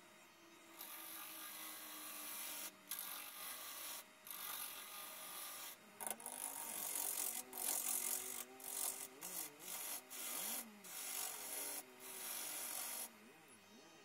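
Woodturning gouge cutting a spinning yew blank on the lathe: a hissing, shaving scrape in stretches of one to two seconds, broken by short gaps as the tool is lifted and set back on the wood. The cutting starts about a second in and stops about a second before the end.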